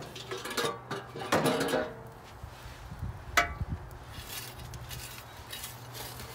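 Steel shovel scraping and clanking against the metal firebox of a wood boiler as ash and coals are scooped out, with one sharp ringing clank about three and a half seconds in and softer scraping after it. A steady low hum lies underneath.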